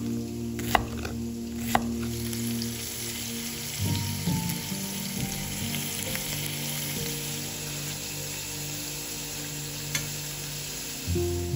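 Food frying in a hot pan, with a steady sizzle. There are a couple of sharp knocks in the first two seconds and a single click about ten seconds in.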